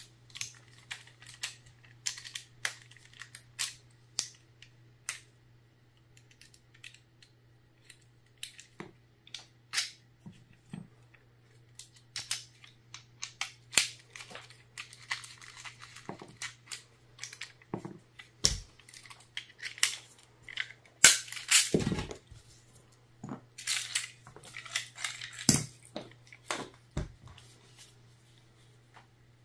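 Irregular clicks, snaps and rattles of small plastic and metal parts being pulled out of a donor FSC/TCP CO2 magazine by hand, with a louder flurry of handling about 21 seconds in. A faint low hum runs underneath.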